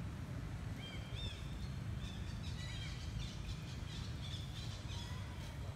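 Birds chirping in a run of short, high, quick notes, over a steady low outdoor rumble.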